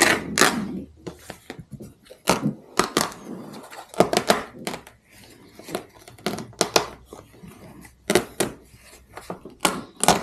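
Vinyl upholstery being pulled by hand off a jet ski seat's plastic base, the staples popping out in an irregular string of sharp snaps and clicks, with the vinyl rustling as it tears free.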